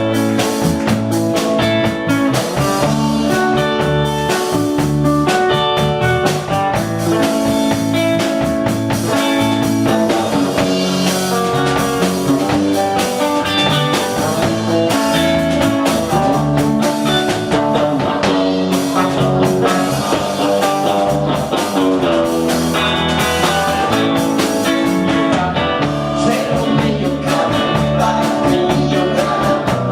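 Live rock band playing a song with electric guitar, bass and drum kit over a steady beat.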